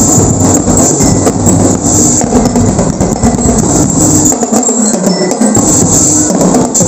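Loud music led by a busy percussion beat of drums and jingling tambourine-like percussion.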